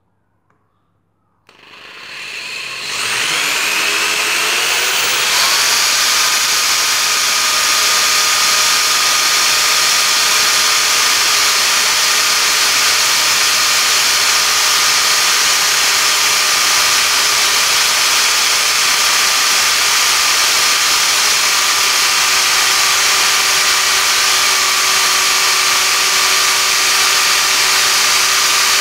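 Electric drill driving a Powerfix 90-degree angle adapter: the motor starts about a second and a half in, its whine rising in pitch, then runs at a steady high pitch as the bit drills into a 4 mm metal plate. The adapter is being run at about 1500 rpm, three times its 500 rpm rating.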